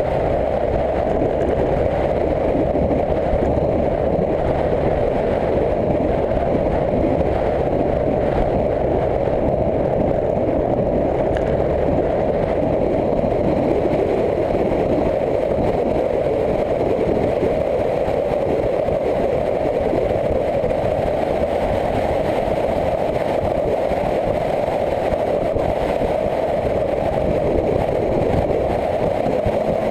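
Motorcycle ridden at a steady pace, heard onboard: a steady rush of wind on the microphone over the engine running evenly.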